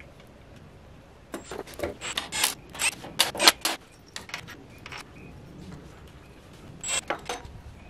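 Sharp metal clicks and scrapes as a water pump and its bolts are handled and fitted to a diesel engine's front cover. There is a quick cluster of clicks starting about a second in, a few more after that, and another short group near the end.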